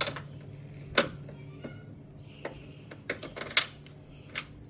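Irregular sharp metallic clicks and clinks of a wrench and sockets being worked on a seized battery hold-down nut, several in a cluster near the end. A steady low hum runs underneath.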